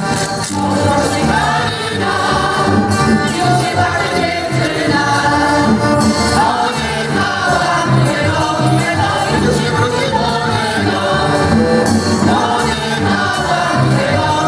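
Polish folk choir of women's and men's voices singing a folk song together, accompanied by accordion and drum with a steady beat.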